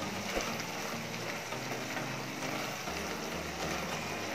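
Okra masala curry cooking in a pan, a steady low sizzle, with one light click about half a second in.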